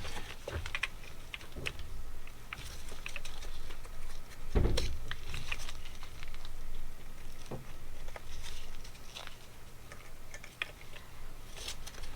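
Scattered light clicks and taps of hand tools and small metal parts on a motorcycle carburetor being taken apart, with one heavier knock about four and a half seconds in.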